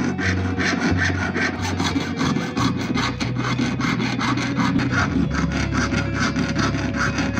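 Jeweller's piercing saw cutting through a coil of silver wire held on a wooden bench pin, parting off jump rings: quick, even back-and-forth strokes of the fine blade, about five a second.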